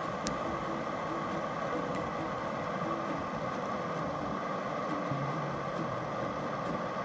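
Canister backpacking stove burning at full flame under a pot: a steady gas roar. Faint crackles from a campfire lie on top.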